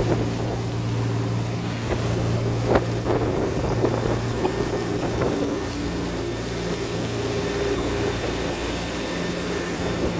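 Engines of a 15-metre polyethylene boat running steadily under way at speed, a constant low drone over the rush of the churned wake.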